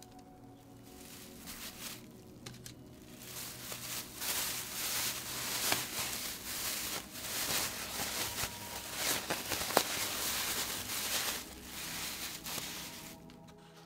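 Thin plastic bag crinkling and rustling as it is handled and twisted shut around roasted chiles, which are being sealed in to sweat. The crackling grows loud about three seconds in and dies down shortly before the end.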